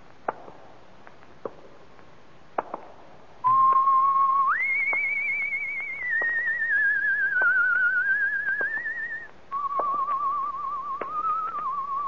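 A whistled tune, one clear note at a time with a quick wavering vibrato, that leaps up, slides down and steps back, starting about three and a half seconds in. Before it there is only faint record hiss with a few clicks.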